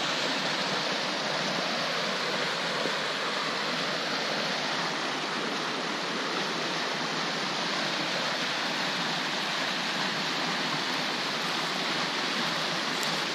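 Fast-flowing creek rushing over rocks and riffles: a steady, even rush of water.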